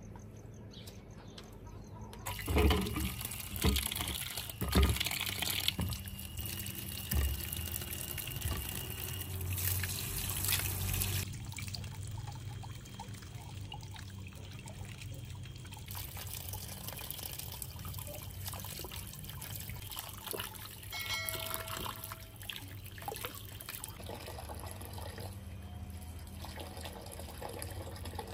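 Water running from an outdoor tap into a metal bowl as vegetables are washed by hand under it, with splashing and knocks of handling, loudest about two to five seconds in.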